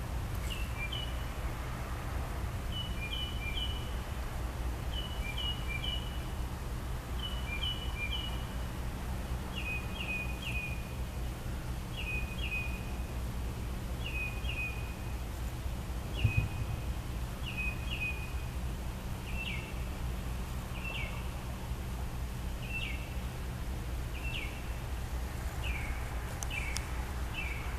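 Mockingbird singing: a phrase of two or three quick high notes repeated about every two seconds, changing about two-thirds of the way through to a single downward-sliding note repeated at the same pace, over a steady low hum. A brief thump about sixteen seconds in.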